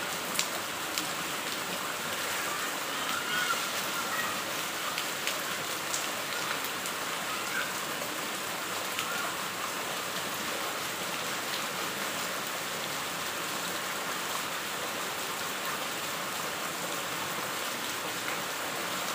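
Heavy rain falling on a paved lane: a steady hiss of rain, with scattered sharper drop hits.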